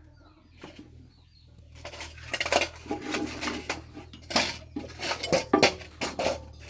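Loose metal bolts and small parts clinking and rattling against one another. A dense run of sharp clinks starts about two seconds in.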